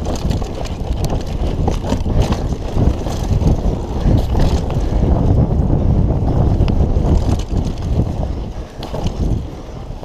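Wind buffeting the microphone and a steady rumble of knobby tyres over dry dirt as a Kona Operator downhill mountain bike descends at race speed, with many scattered sharp clicks and rattles from the bike over rough ground.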